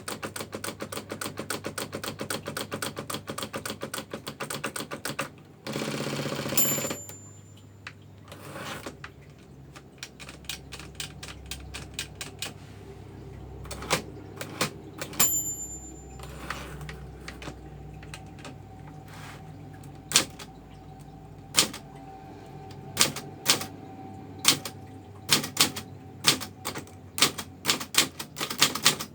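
Manual typewriter being typed on: a fast run of key strikes, then a longer rasping sweep about six seconds in, as at a carriage return. The margin bell dings twice. After that come slower, separate key strikes.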